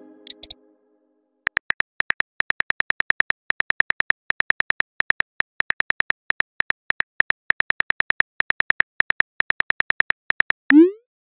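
Simulated phone-keyboard typing sound effect: a fast run of short, pitched clicks, several a second, as a text message is typed out. Near the end comes a short rising swoosh, the message-sent sound.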